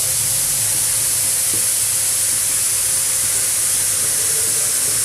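Steady, high hiss of background noise that holds unchanged throughout.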